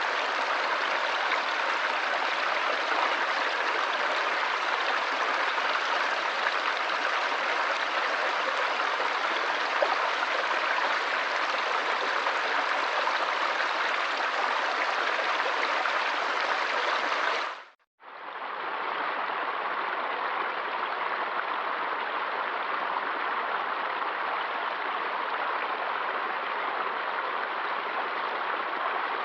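Flowing water of a stream, a steady rushing and babbling; about two thirds of the way through it fades out briefly and comes back as another, slightly duller stretch of running water.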